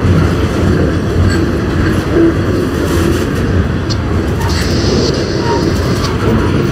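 Circus train's flatcars carrying trailers rolling past at close range: a steady loud rumble of steel wheels on rail, with faint clicks from the rail joints.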